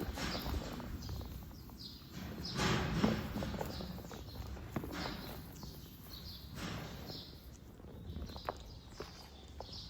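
Footsteps and rustling on the ground, loudest about three seconds in, with short high chirps repeating throughout.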